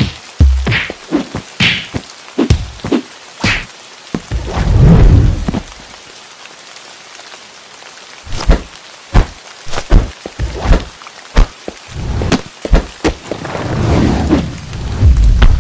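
Animated-film sound effects: a run of sharp knocks and thuds with a few quick swishes near the start, and two low rumbles of a second or more, one about five seconds in and a longer one near the end, over a faint steady hiss.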